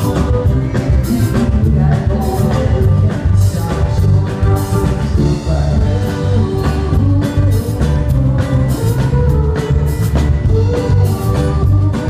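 Live band playing a rock song: strummed acoustic guitar and drum kit under a man singing.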